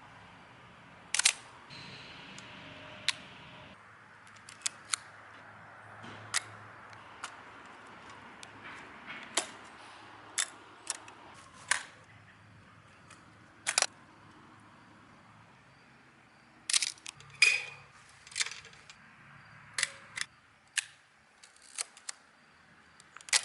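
Film camera shutters firing: about twenty sharp mechanical clicks at irregular intervals, some in quick pairs and clusters in the second half.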